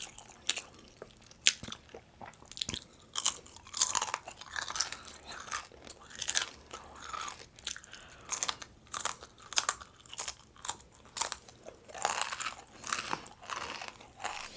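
Close-miked chewing of crunchy breakfast food, with repeated crisp crunches at about two a second.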